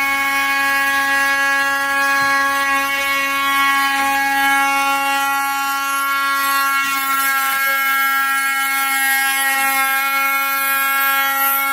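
PWNCNC 1.5 kW water-cooled spindle on a Shapeoko 3 XXL CNC router running steadily while an end mill slots through aluminum plate: an even, high-pitched machine whine made of several steady tones, with a hiss of cutting noise above. The cut is running so hot that coolant is burning off the workpiece.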